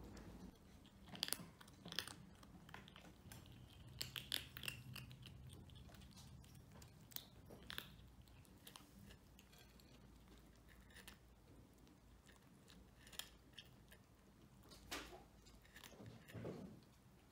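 Kittens crunching dry cat food kibble, with faint, irregular crisp crunches in small clusters.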